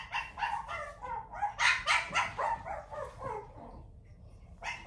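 A dog barking and yipping repeatedly in quick short calls, several a second, loudest about two seconds in, dying away about three and a half seconds in and starting again near the end.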